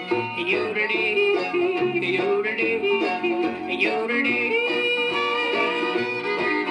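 Country song played back from a 33 rpm black Lexan disc: a male voice yodeling between verses over a strummed guitar.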